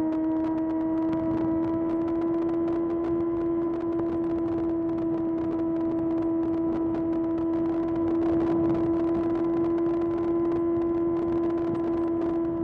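Kawasaki ZX-6R's 636 cc inline-four engine running under way, heard from the fuel tank, its note rising slightly over the first couple of seconds and then holding a steady pitch.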